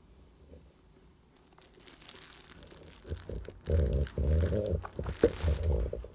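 Handling noise from a sneaker being turned over in the hand right by the microphone: a light crinkly rustle that turns into loud, irregular rubbing and crackling about three seconds in.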